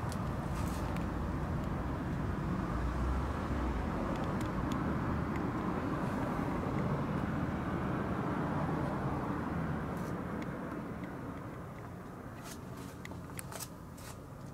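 Low rumbling background noise that swells and then fades after about ten seconds, with a few light clicks near the end.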